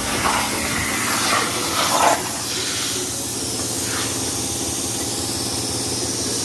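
CNC plasma cutter's torch cutting steel sheet with a steady hiss. About two seconds in the arc stops and the mid-range of the sound drops away, while a steady hiss carries on.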